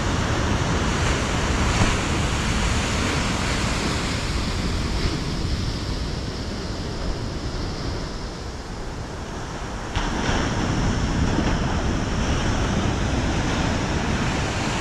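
Ocean surf breaking and washing up a sandy beach, a steady rush that eases for a few seconds and picks up again abruptly about ten seconds in, with wind rumbling on the microphone.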